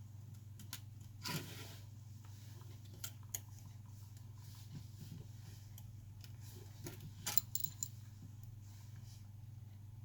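Light clicks and taps of small tools and phone parts being handled during an iPhone battery replacement, the sharpest about a second in and a quick cluster near the end, over a steady low hum.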